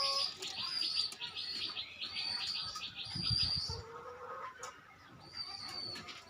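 Small birds chirping in a fast run of repeated high notes for the first few seconds, then fainter, scattered calls.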